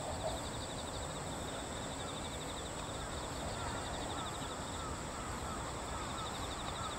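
Insects chirping in grass: a steady high buzz with a fast, pulsing chirp, joined about three seconds in by a run of short, repeated chirps.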